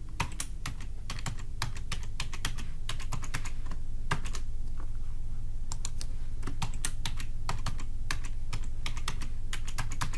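Typing on a computer keyboard: irregular key clicks in quick runs with short pauses, over a steady low hum.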